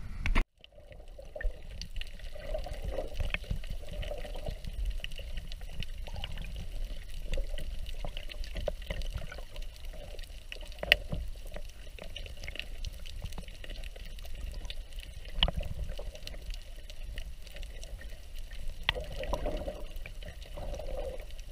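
Underwater sound picked up by a GoPro in its waterproof housing, dipped under a kayak: a brief splash as it goes under just after the start, then a muffled low rumble of water moving against the housing with scattered sharp clicks.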